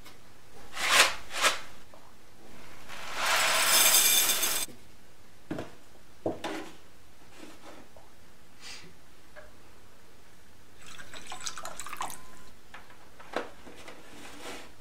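A couple of knocks, then dry Fruity Pebbles cereal poured from the box into a ceramic bowl, a steady hiss for about two seconds. Later, scattered clicks, and a patch of plastic crackling near the end as the cap of a plastic gallon milk jug is worked open.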